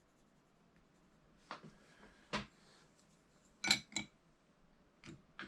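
About six light, sharp clicks and taps of pencils being handled on a drawing desk, spaced irregularly and starting about a second and a half in.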